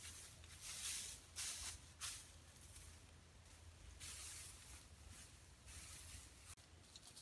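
Long dry grass rustling and swishing as a bundle of it is gathered and handled by hand, in several short bursts.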